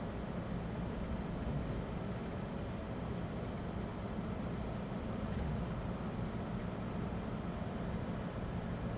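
Steady in-cabin noise of a 2009 Land Rover Defender 90 cruising at motorway speed: its Ford Puma diesel engine running with tyre and road noise, even throughout and heaviest in the low end.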